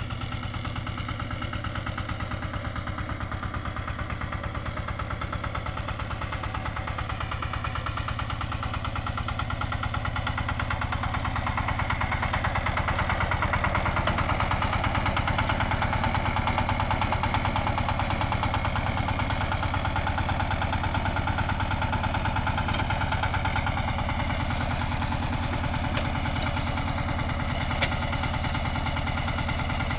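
Two-wheel walking tractor's single-cylinder diesel engine chugging steadily as it pulls a loaded wooden trailer, growing louder around the middle as it comes closer.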